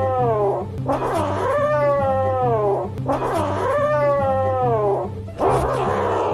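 Grey kitten yowling possessively over a plush toy that a hand is reaching for: three long, drawn-out yowls, each falling in pitch, then a harsher, noisy call near the end.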